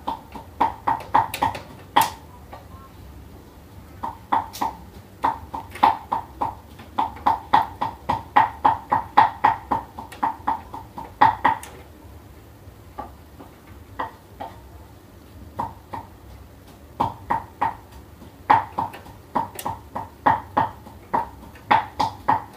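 Screwdriver turning screws out of a laser printer's plastic top frame: runs of short, sharp clicks, about three or four a second, with pauses between the runs.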